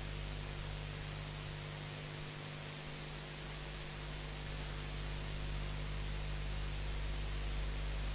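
Steady hiss with a low electrical mains hum: background noise of the recording and sound system with no one speaking.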